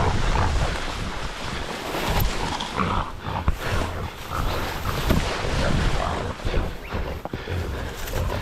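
Leaves and branches rustling and snapping with scattered sharp cracks as someone pushes through a dense thicket, with wind and handling noise on the microphone. Under it, low animal grunts from an animal in the brush.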